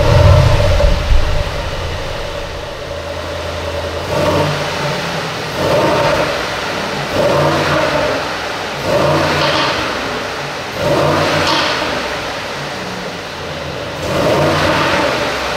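Mercedes-AMG GLE 63 S Coupe's 4.0-litre biturbo V8 cold-starting with a loud flare and settling into a fast idle, set in Sport Plus mode. It is then revved in six short blips, a second or two apart, with a longer gap before the last.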